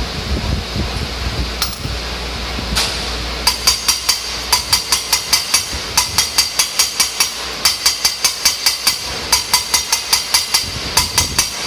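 Rhythmic metallic tapping on a car cylinder head during valve work: runs of sharp, ringing taps about four a second, broken by short pauses, starting a few seconds in.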